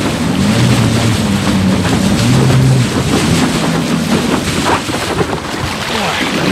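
Wind buffeting an action camera's microphone and water rushing and splashing past a motor-driven SUP board riding at speed. The noise eases slightly near the end as the board slows.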